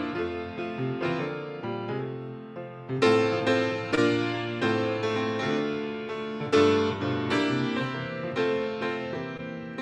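Solo piano playing a slow instrumental prelude, with chords struck and left to ring.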